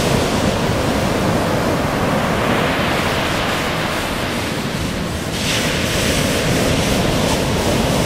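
Ocean surf breaking and washing in on the beach, a steady rushing noise with wind on the microphone; a brighter hissing wash comes through about five seconds in.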